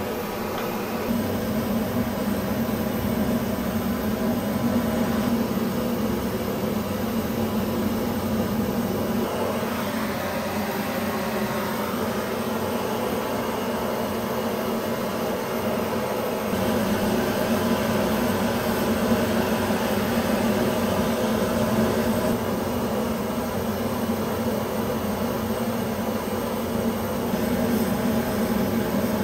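Hand-held gas torch flame burning with a steady rush as it heats metal on a firebrick hearth. The sound grows a little louder about halfway through.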